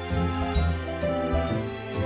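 Gentle background music: sustained melodic notes over a steady bass, with light chiming accents.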